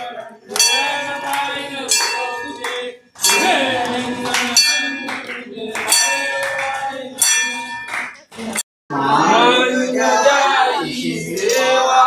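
Temple bell struck again and again, each strike ringing on, with hand clapping and voices of the gathered worshippers around it. The sound cuts out briefly about two-thirds of the way through, and then mostly voices are heard.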